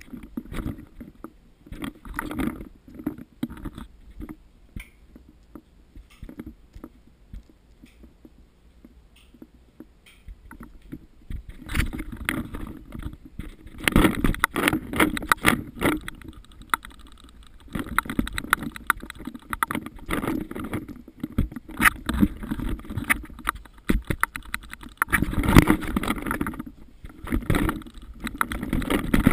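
Handling and movement noise from a camera carried by a person on the move: irregular rustling, scraping and small knocks. It is sparse at first and grows into busier bursts from about halfway in.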